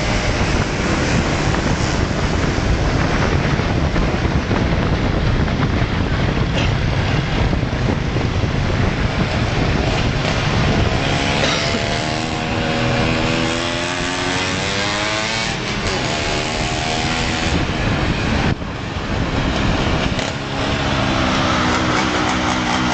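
Underbone motorcycle engines running at speed under a steady rush of wind over the microphone; about halfway through, an engine note rises as it revs up, then drops, and it revs up again near the end.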